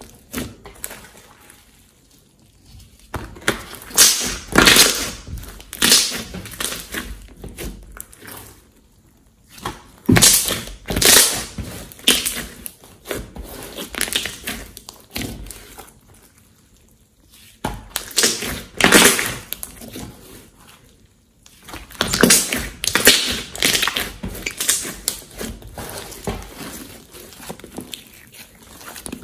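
Hands kneading, folding and pressing thick glossy slime on a tabletop: sticky squelches and crackles in bursts of a few seconds, with short quieter pauses between them.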